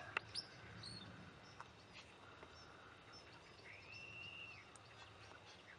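Faint outdoor quiet with distant bird calls: a few small high chirps and clicks, and one drawn-out whistled note lasting about a second, some four seconds in.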